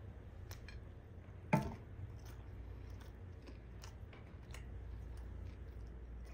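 Close-miked chewing of a mouthful of beef biryani with the lips closed: scattered soft wet mouth clicks, with one louder thump about a second and a half in, over a steady low hum.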